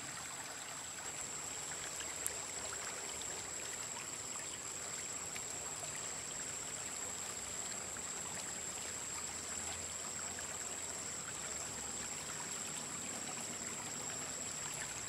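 Shallow river flowing steadily, an even rush and trickle of water. A faint, steady high-pitched tone sits above it.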